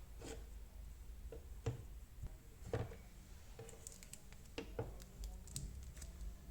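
Scattered light clicks and knocks of hands handling an unboxed power tool and its packaging, with two louder knocks in the first half.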